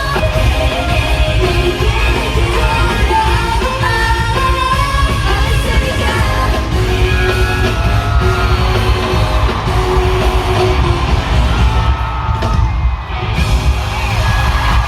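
Live pop concert music: singing over a loud backing track with heavy bass, with crowd yelling, heard in a large arena.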